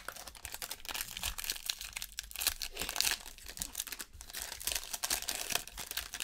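Foil trading-card pack wrapper being torn open and crinkled in the hands: a dense, continuous run of crinkling and tearing.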